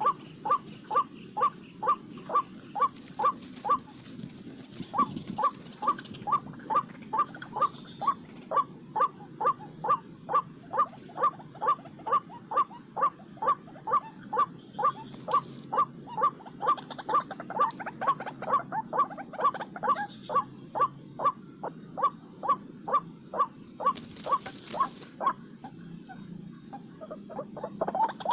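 White-breasted waterhen calling: one short call repeated evenly, about two and a half times a second, with a brief pause near the end.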